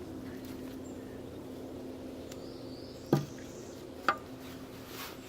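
Two sharp knocks about a second apart, a little past halfway, over a faint steady hum: harvested potatoes being dropped into a container.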